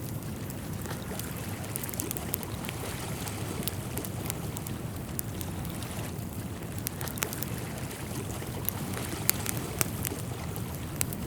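Outdoor nature ambience: a steady rush of wind and moving water, with scattered small sharp clicks.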